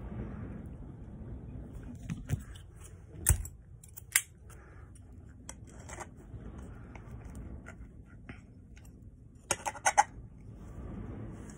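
Sharp clicks and rattles of a small object being handled by hand: single clicks about two, three and four seconds in, and a quick cluster of four clicks near the end.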